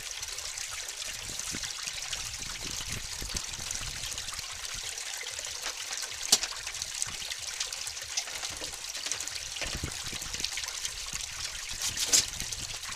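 Water trickling and splashing steadily as an aquaponics grow bed drains through its auto siphon, with two short clicks, one about halfway through and one near the end.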